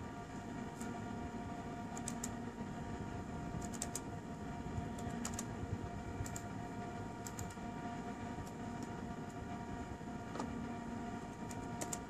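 Scattered keystrokes on a laptop keyboard as AutoCAD commands are typed: single taps and short clusters of two or three, over a steady hum with several held tones.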